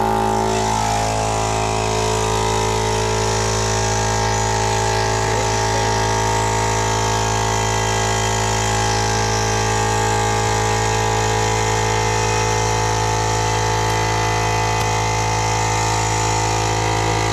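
Air compressor running steadily, pumping air into a tubeless dirt-bike tire to seat its bead.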